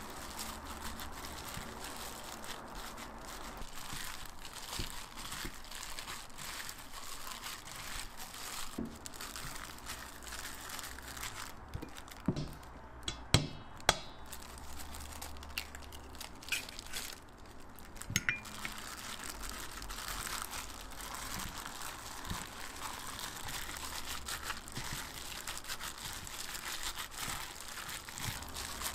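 A plastic-gloved hand squishing and kneading a sticky mix of ground pork and rice in a stainless steel bowl, the glove crinkling steadily. About halfway through come a few sharp knocks as an egg is cracked against the bowl.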